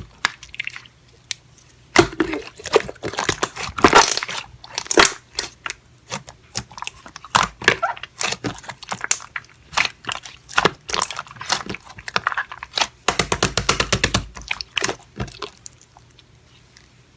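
Slime being squished and pressed by hand, giving irregular clusters of sharp crackling and popping clicks.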